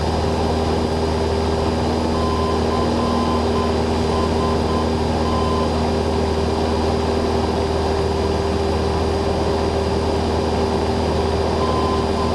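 Cessna 172N's four-cylinder Lycoming engine and propeller droning steadily in cruise flight.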